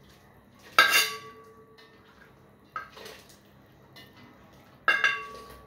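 A metal utensil strikes a metal pot lid twice, each clank ringing on briefly, with a lighter knock between, as boiled pumpkin is crushed on top of the pot cover.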